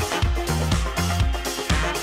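Background dance music with a steady beat and a bass line stepping between a few low notes.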